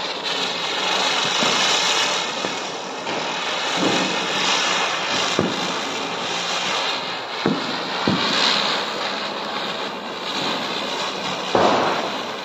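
A ground-spinner firecracker (chakri) spinning and hissing steadily as it sprays sparks. Several sharp pops come through it, the loudest near the end.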